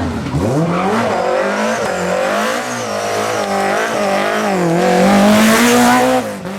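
BMW M3 E30 rally car's four-cylinder engine revving hard at speed. Its note falls steeply at the start, then climbs and swings up and down with the throttle and gear changes. A rush of tyre noise peaks about five seconds in, and the sound cuts off abruptly just before the end.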